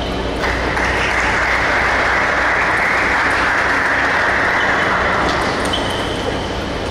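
A steady rushing noise starts suddenly about half a second in and eases off after about five seconds. Near the end the faint clicks of a table tennis rally can be heard: a celluloid ball striking paddles and the table.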